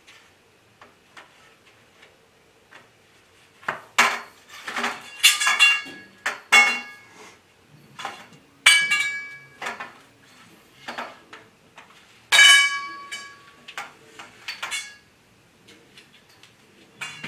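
16 mm steel grow-tent frame tubes clanking against each other as they are handled, a series of sharp metallic clinks and knocks that ring briefly, starting a few seconds in.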